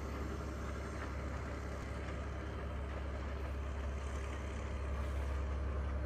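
Class S14 diesel train's engine running steadily under load on a climb: a continuous deep hum with a steady drone above it.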